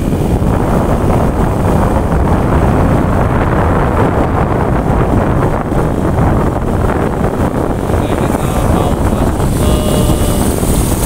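Wind buffeting the microphone of a moving vehicle, with a steady low rumble of engine and tyre noise on a paved road; a brighter hiss comes in near the end.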